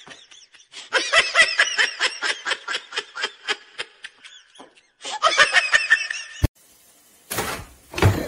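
A person laughing hard in quick, repeated bursts, in two long fits that each trail off. A sharp click follows near the end, then a brief rustling noise.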